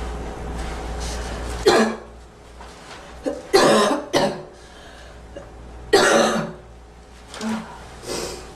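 A girl coughing: short, hard single coughs one to two seconds apart, starting about two seconds in, with a softer cough near the end.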